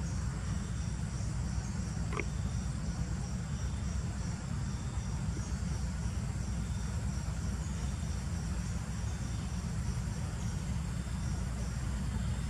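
Insects chirping: a high, pulsed chirp repeating about twice a second, over a low steady rumble. A single brief click about two seconds in.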